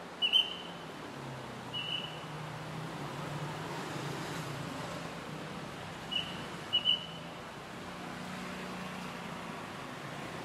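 Steady street traffic with engines running, broken by short, high peeps: a quick pair right at the start, one about two seconds in, and another single and a pair after about six seconds.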